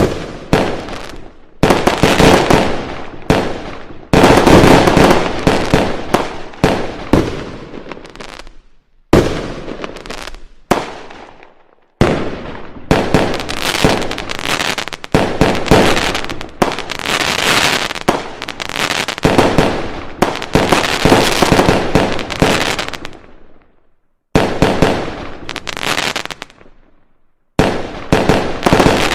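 Firecrackers going off in long, dense runs of rapid cracks and bangs. The runs start abruptly, die away, and break off several times before starting again.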